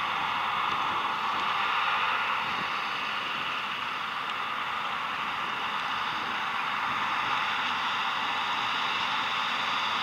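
John Deere 6R 185 tractor pulling a Claas Quadrant big square baler through a straw swath: a steady, even machinery noise.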